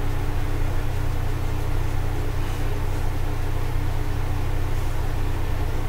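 Steady low hum with an even hiss over it, with no distinct event.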